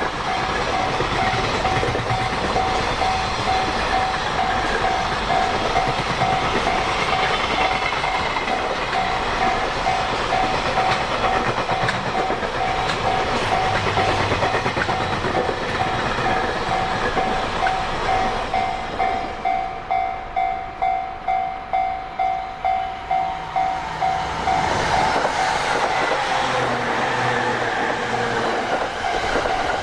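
Container freight wagons rolling past on jointed track with a steady high ringing tone over the wheel noise. The clatter settles into a regular beat as the tail recedes. From about 25 s in, an electric multiple unit passes close by, its motors whining in gliding tones.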